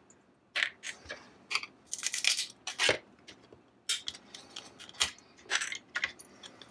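Support material being pried and snapped out of a freshly 3D-printed silk PLA part: irregular sharp plastic clicks, cracks and short scrapes.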